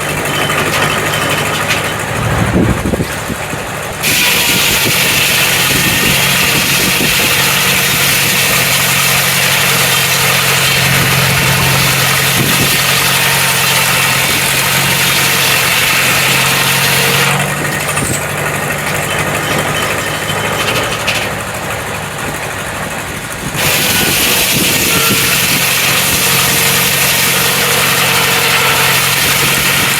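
An engine running steadily under a loud, even hiss. The hiss comes in about four seconds in, drops away for several seconds past the middle, then returns.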